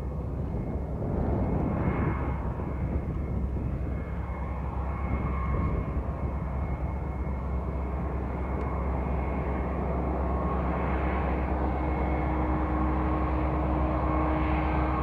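Distant diesel freight locomotives working, a steady low engine drone with a few held whining tones over it, growing a little louder near the end as the lead units come closer.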